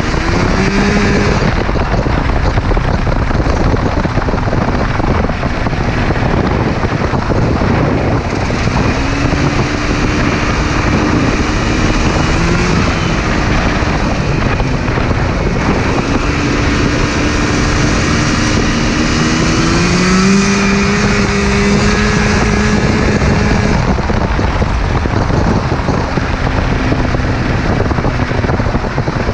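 A Yamaha Phazer snowmobile's two-stroke twin engine runs at speed in a go-kart, its note holding steady for stretches and climbing at the start and again about twenty seconds in as the kart speeds up. A loud rushing noise of wind and road runs under it throughout.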